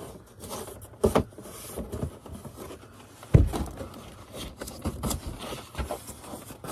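Cardboard being scored along a fold line and handled: scraping on the cardboard with scattered clicks and two heavier thumps, about a second and about three and a half seconds in.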